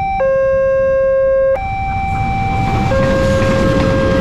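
Level-crossing warning alarm from a loudspeaker on the crossing post, sounding two steady electronic tones, one low and one high, alternating about every second and a half. From about halfway the rumble of an approaching train grows beneath it.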